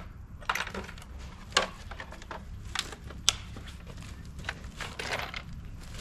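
Scattered light clicks and rustles of small items being handled, over a steady low background rumble.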